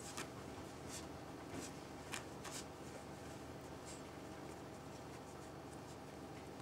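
Faint scratchy rustling with a few soft clicks in the first two and a half seconds, then only faint room hiss: a small Italian greyhound puppy moving about on a carpet and nosing a fabric blanket.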